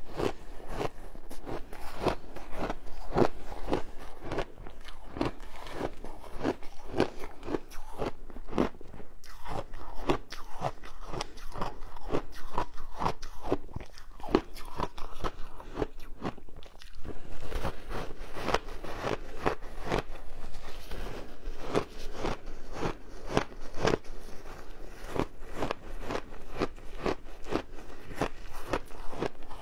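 Close-miked crunching as a person bites and chews a block of packed, dyed shaved ice, the crunches coming about three a second with brief lulls between mouthfuls.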